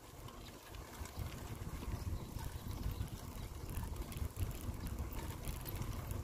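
Uneven low rumble of wind buffeting the microphone and bicycle tyres rolling on rough asphalt, with faint scattered ticks.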